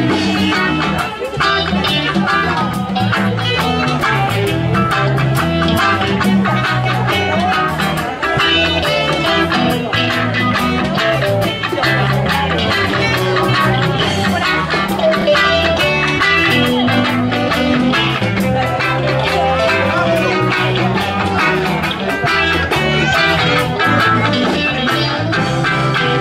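Live band playing: electric guitars over a steady bass line and drums.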